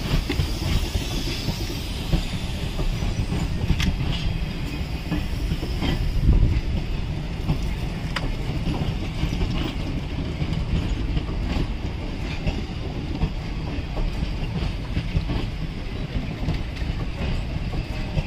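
ICF passenger coaches of an Indian Railways express rolling past on the track: a steady rumble of wheels and bogies, with scattered sharp clicks and clacks as the wheels run over rail joints.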